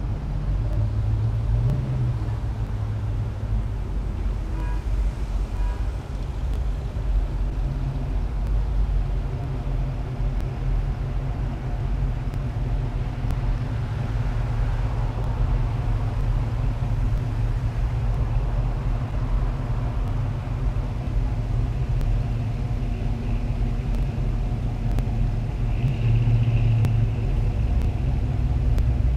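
Classic cars' engines running close by on the street, a steady low rumble with an even engine hum, swelling for a moment near the end as one comes closer.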